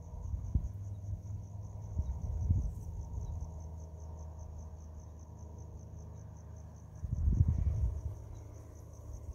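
Crickets chirping in a steady, fast, even pulse. A few dull low thumps come through, the loudest about seven seconds in.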